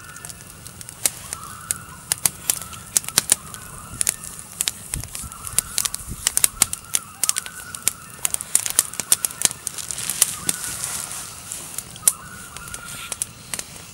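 Common loons wailing several times in long drawn-out calls, over a campfire crackling with frequent sharp pops.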